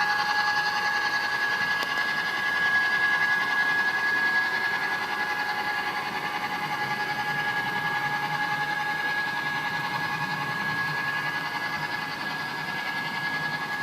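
HO-scale model train running on the layout: a steady high whine from the small electric motor and gearing, with a low hum that grows a little louder about halfway through.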